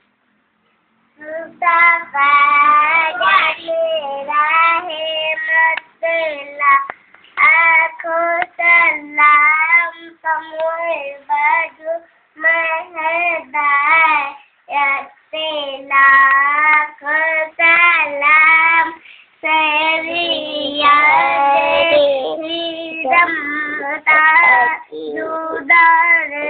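A child singing alone, one high voice in short phrases with no accompaniment, starting about a second in.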